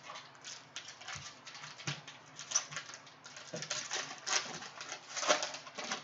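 Wrapper of a Mosaic trading-card pack crinkling and tearing as the pack is opened and the cards are handled: a quick, uneven run of crackles and rustles, with a few louder crackles in the second half.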